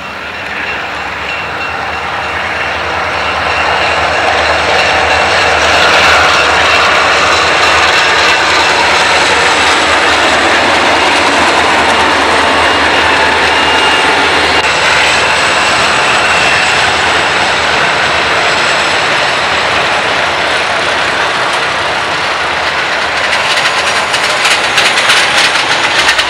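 Freight train passing close by: the diesel locomotives' engine sound builds over the first few seconds into a loud, steady rush, and the freight cars roll by behind them, with a run of clacking from the wheels near the end.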